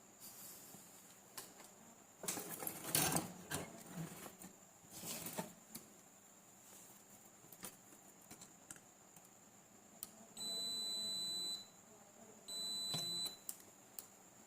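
Bench handling noise, then two high-pitched electronic beeps: the first about a second long, the second shorter.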